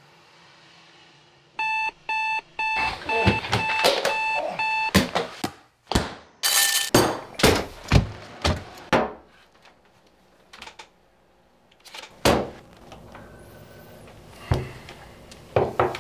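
Alarm clock beeping, a quick run of short repeated beeps lasting about three seconds, followed by a string of sharp knocks and clicks.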